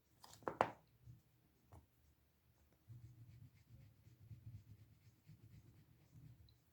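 Faint scrubbing of an eraser rubbed back and forth over a switch's contacts board, scouring oxidation off the contacts. A couple of sharp knocks come in the first second, before the rubbing settles in.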